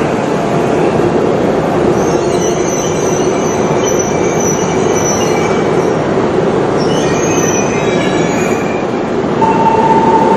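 Hokkaido Shinkansen train running on the rails with a steady loud rumble and thin high-pitched wheel squeals. A steady single-pitched tone starts near the end.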